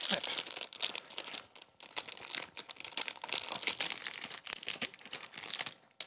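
Crinkly plastic bag crackling and crumpling in the hands as it is twisted and pulled at to tear it open, in irregular bursts with a brief lull about two seconds in.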